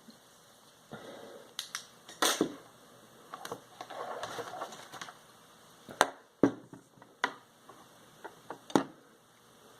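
Handling noises from small parts being worked by hand: a few sharp clicks and taps, with stretches of rustling in between.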